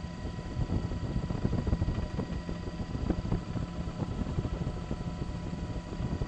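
Helicopter running: a steady hum with an uneven low rumble, louder in the middle.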